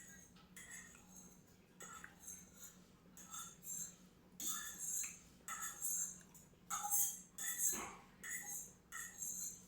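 Close-up crunchy chewing of someone eating: a run of crisp bites and mouth sounds about twice a second, loudest in the middle of the stretch.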